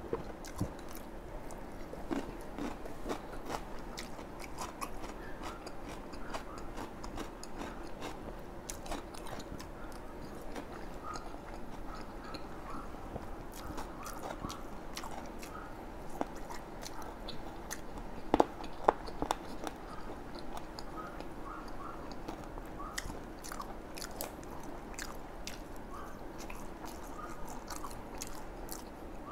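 Close-miked eating of bún đậu mắm tôm: biting and chewing fried tofu and fried sides, with crisp crunches and many small clicks from the mouth. A few louder sharp clicks come a little past halfway.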